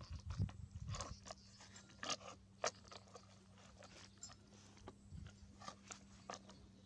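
A string of irregular small clicks and crunches, closest together in the first few seconds, over a low steady hum.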